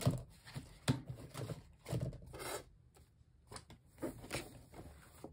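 Sticker sheets and paper being handled and flipped through by hand: irregular rustles, rubs and light taps, thinning out towards the end.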